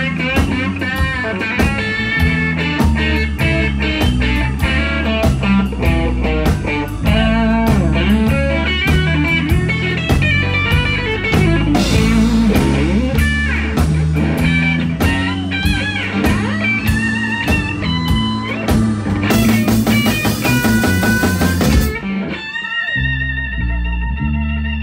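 Blues-rock band playing an instrumental section: electric guitar lines over bass guitar and drums. About 19 seconds in a bright cymbal wash rises, and after it stops the band plays thinner.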